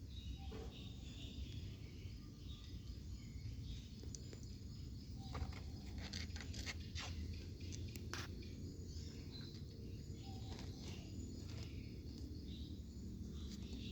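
Kittens purring, a steady low rumble, with faint high chirps and a few soft clicks about six to eight seconds in.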